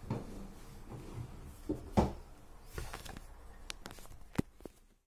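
Scattered knocks, clicks and rustling of objects being handled and moved about on a desk, with the sharpest knock about two seconds in.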